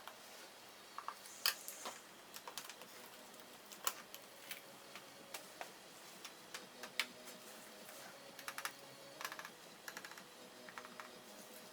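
Faint, irregular clicks and taps of small plastic and metal parts being handled and pried during a laptop teardown, with the sharpest clicks about a second and a half in and near four seconds.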